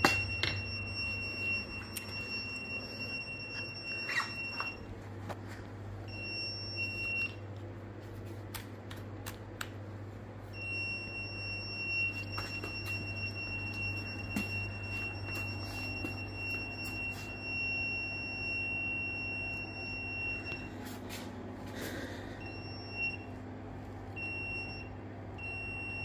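A hand-held non-contact voltage detector sounds a steady high-pitched tone as it is run along a vacuum-cleaner power cord, signalling live voltage on the cord. The tone drops out twice for a second or more, then near the end breaks into three short beeps as the signal comes and goes.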